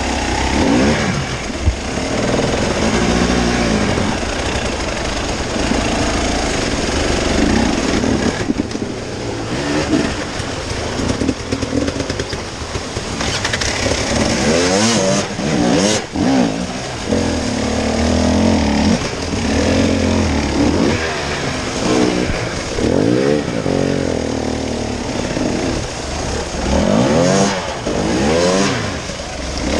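Off-road motorcycle engine running under load, its pitch climbing and dropping again and again as the throttle is opened and closed, with a steady rush of wind and road noise underneath.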